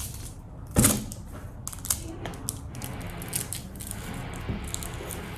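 Chocolate milk container being opened and handled: a sharp click about a second in, then scattered small clicks and rustles.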